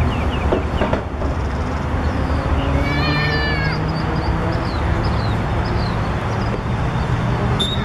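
A single high-pitched, drawn-out cry about three seconds in, lasting about a second and dropping in pitch at the end, most likely a child shouting on the pitch. Under it is a steady low hum of background noise, with short faint high calls scattered through.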